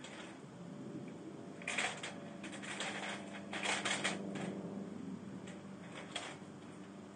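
A squirrel caught in a Havahart wire-mesh live cage trap, moving about inside and rattling the wire cage in short spells of quick clicks and clatter, four times.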